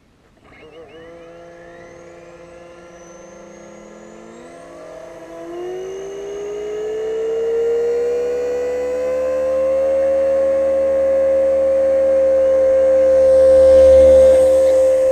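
Electric motor and rotors of a Solo Pro 229 RC helicopter spinning up. A whine climbs in pitch about five seconds in, then holds steady and grows louder, with a low rumble of rotor wash near the end as the helicopter comes close to the microphone.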